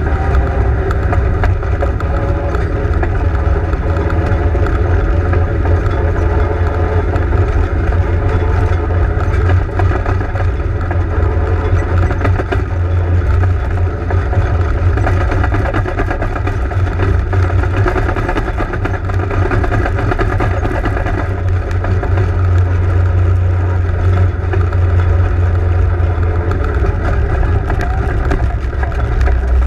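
Legends race car's Yamaha inline-four motorcycle engine running steadily at low speed as the car rolls through the pits, heard loud from inside the cockpit, with small swells as the throttle changes.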